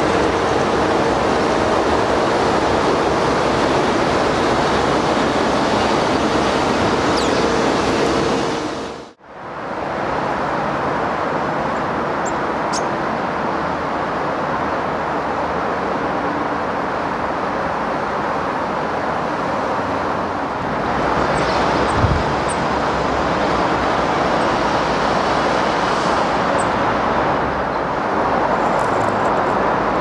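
Steady loud rushing noise, like distant road traffic, that fades out for a moment about nine seconds in and then returns. A few faint, short high chirps sound over it.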